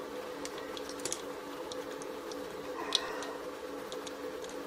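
Faint small clicks of pliers and a screwdriver working a Kelvin clip's metal spring against its plastic jaws: a couple of light ticks about a second in and one a little louder near three seconds, over a steady background hum.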